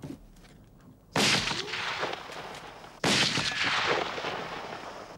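Two gunshots about two seconds apart, each sudden and loud with a long echoing tail.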